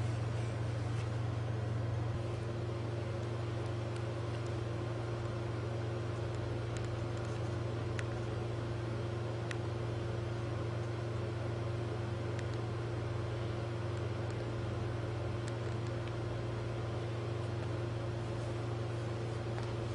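A steady low hum, with a second, higher steady tone joining about two seconds in and a few faint ticks.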